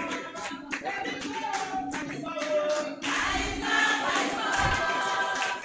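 A group of voices singing a song, with many hand claps through it.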